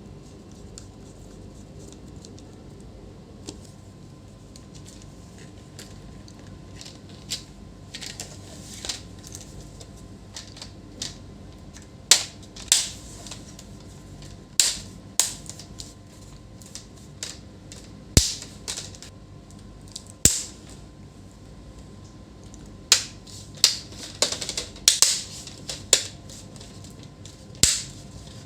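Sharp, irregular clicks and taps from the parts of a Lenovo IdeaPad 130 laptop being handled and fitted during a display replacement. The clicks are sparse at first and become more frequent and louder from about halfway through.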